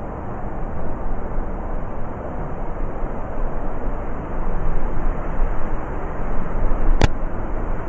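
Blizzard wind blowing hard in gusts, a deep rushing noise that swells and eases every second or two. A single sharp click comes about seven seconds in.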